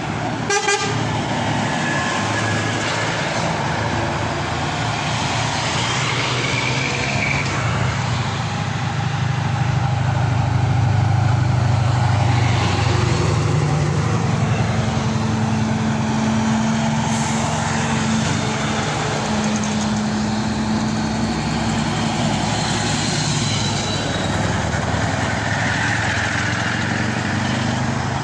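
Heavy lorry tractor units' diesel engines running as they pull away and pass close by, the drone swelling to its loudest near the middle. A horn sounds in two long blasts around the middle.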